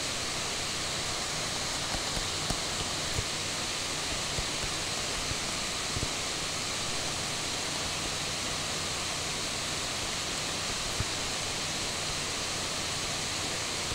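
Steady hiss of microphone and room noise with a faint low hum, and a few faint small ticks scattered through.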